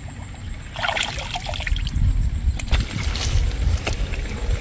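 Muddy water sloshing and splashing as hands grope through a shallow mud puddle for fish, with wet squelching steps as the wader climbs out of the mud, over a low rumble that builds from about a second and a half in.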